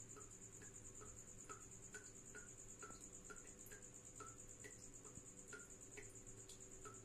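Tropical house cricket trilling: a faint, continuous high-pitched pulsing song held steady. Underneath, short falling chirps repeat about twice a second.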